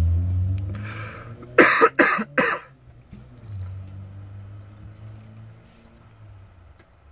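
A person coughs three times in quick succession. The coughs are loud over a low rumble that fades away.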